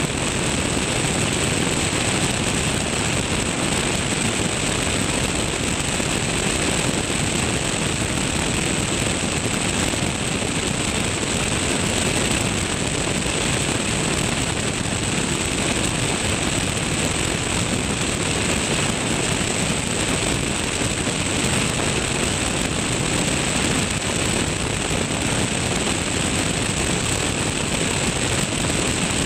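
Light aircraft in steady cruise flight: a Tecnam P2002 Sierra's engine and propeller drone under a rush of airflow past a camera mounted beneath the wing, with a thin, steady high whine over it.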